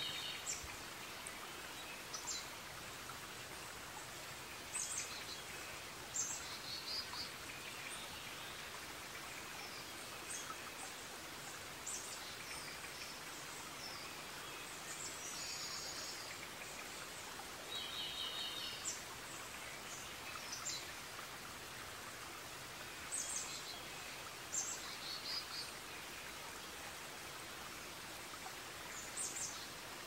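Forest ambience: a steady, even hiss with birds chirping at intervals. Some of the calls are short repeated trills.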